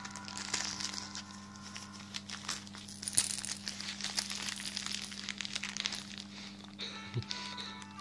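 Wrapping paper crinkling and rustling in irregular bursts as a cat paws at a wrapped present.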